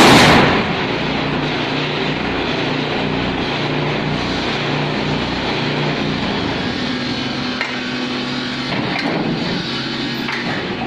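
Brick-making machine running: a loud clattering bang right at the start, then a steady mechanical hum and rattle.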